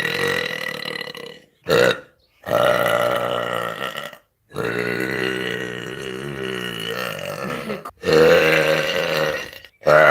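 A woman belching a string of long, deep burps, one after another, the longest drawn out for over three seconds. The gaps between them start and stop abruptly.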